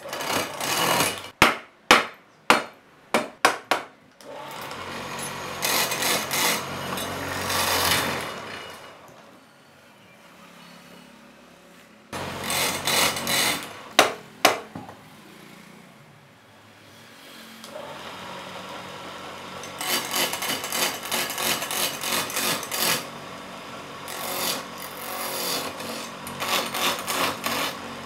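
Sharp hammer strikes on wood: about seven in the first few seconds and two more about halfway. Between them, a hand turning tool cuts into a wooden blank spinning on a wood lathe, a dense scraping hiss dotted with rapid chip ticks.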